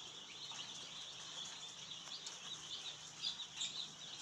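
Hundreds of day-old broiler chicks peeping all at once: a dense, unbroken chorus of short, high cheeps.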